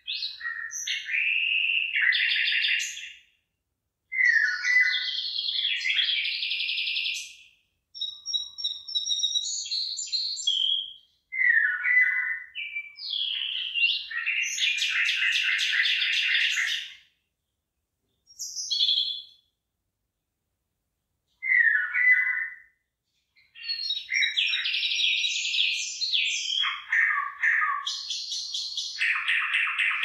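Songbird singing in a string of phrases, each a few seconds of quick chirps and trills, with short silent breaks between them.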